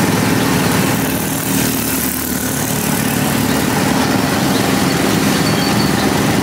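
A small engine running steadily at idle, with a slight dip in loudness about two seconds in.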